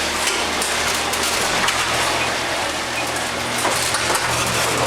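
Chain-drive garage door opener running: a steady motor hum under a continuous rattling clatter of the chain and the moving door.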